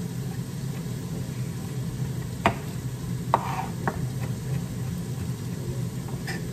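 Chef's knife mincing garlic on a wooden cutting board, with three sharp knocks of the blade on the board a few seconds in, over a steady low hum from a running air fryer.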